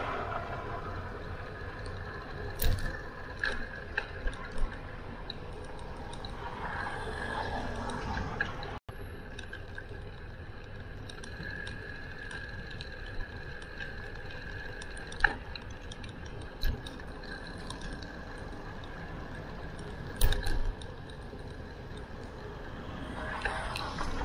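Riding noise from a bicycle: a steady hiss of tyres and wind, broken by a few sharp knocks from bumps. There is a split-second cut-out about nine seconds in.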